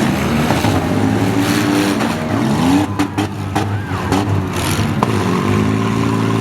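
Several minivan, SUV and small-truck engines revving up and down together as the derby cars drive and ram, with a few sharp knocks about three seconds in and again near five seconds.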